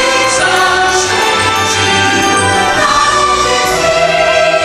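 Choir singing over orchestral music: the holiday soundtrack of a fireworks show.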